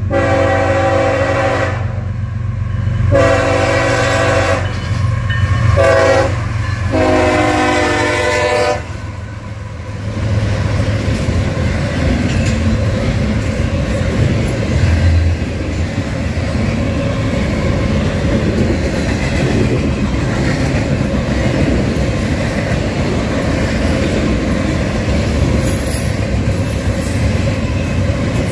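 Freight locomotive's multi-note air horn sounding the grade-crossing signal: two long blasts, a short one and a final long one. Then the train rolls past with a steady rumble and wheel clatter.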